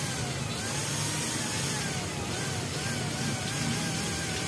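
Street traffic running steadily, with a faint wavering tone rising and falling over it.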